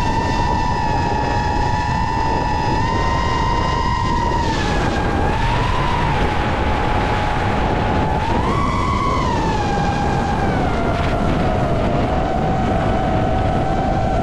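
FPV racing drone's electric motors whining, the pitch swelling up and dropping back a few times with throttle, notably near the middle and about two-thirds through. Heavy wind rush underneath.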